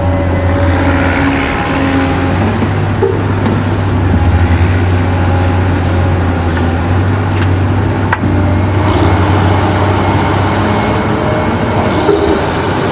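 Truck engine running steadily, a low hum with a thin high whine that dips and rises above it.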